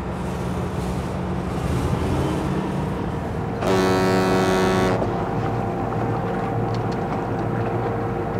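Low steady rumble of a tugboat's engine, then about four seconds in one blast of a ship's horn lasting just over a second, followed by a steady hum.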